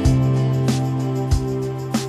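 Background music: sustained notes over a steady beat that falls about every two-thirds of a second.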